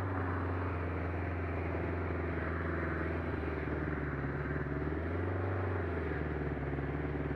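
Motorcycle engine idling steadily, its low hum shifting slightly in pitch partway through.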